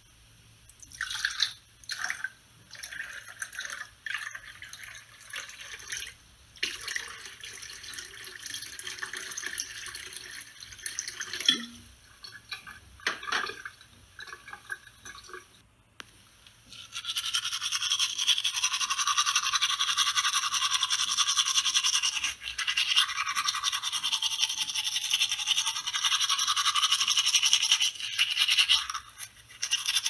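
Toothbrush scrubbing teeth. Short, irregular strokes come first, then after a brief pause about halfway, steady continuous brushing.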